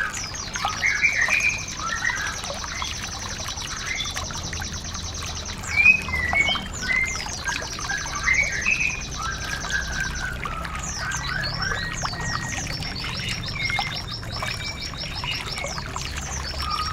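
Songbirds singing over steadily trickling water: long, rapid high trills lasting a few seconds each, about four of them, with shorter chirps and whistles between.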